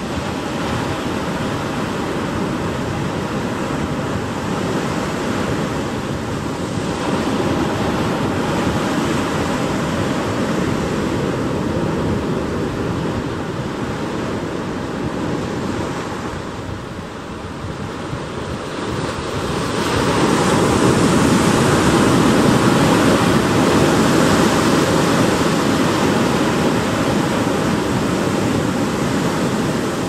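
Ocean surf breaking and washing up a sandy beach, a continuous rush of water that swells about seven seconds in, eases briefly, and swells louder again about twenty seconds in.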